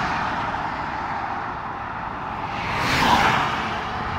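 Highway traffic noise: a vehicle passes at speed about three seconds in, its tyre and engine noise swelling and then fading over steady road noise.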